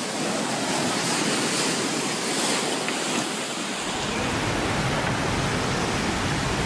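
Loud, steady rushing of fast-moving water, with a deeper rumble joining about four seconds in.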